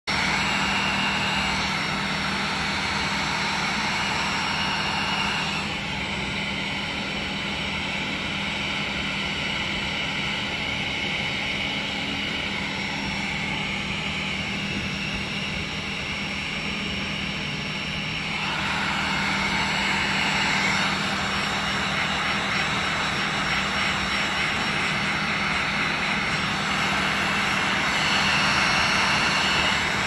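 Wagner heat gun blowing steadily, its fan motor humming under the rush of hot air as it warms paint protection film to shape it into a door handle recess. The blowing gets somewhat quieter for a stretch in the middle, then louder again.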